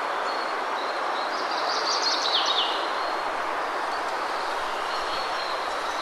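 Steady wind rushing through tall grass. About two seconds in, a bird calls briefly: a quick cluster of high notes ending in a few short falling ones.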